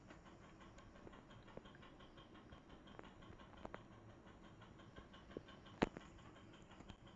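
Near silence: quiet room tone with faint scattered clicks and light scratching, and one sharper click about six seconds in.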